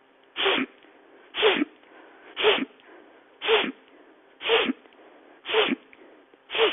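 A woman taking sharp, forceful breaths in through the nose, about one a second, seven in a row, with a passive exhale through the open mouth between them. This is a rhythmic breathing drill meant to increase lung capacity.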